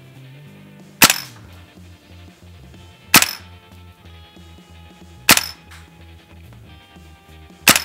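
Bear Paw Production OTs-03 SVU gas blowback airsoft sniper rifle, on green gas, firing single semi-auto shots into a chronograph: four sharp, loud cracks about two seconds apart.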